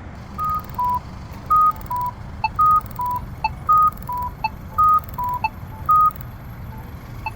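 Accessible pedestrian signal at a crosswalk sounding short electronic beeps that alternate between a higher and a lower pitch, about two a second, eleven in all, stopping about six seconds in. Under them the push-button locator tone ticks about once a second.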